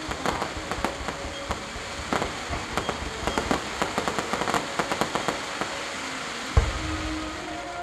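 Fireworks going off: a rapid, irregular crackle of sharp pops from gold crackling effects, then one loud deep boom about six and a half seconds in.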